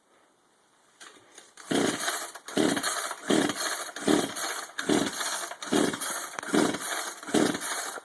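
Two-stroke chainsaw engine cranked with its pull-start rope: about ten quick pulls in a row, each a short whirr, with the engine not catching. It is a cold start that needs more priming.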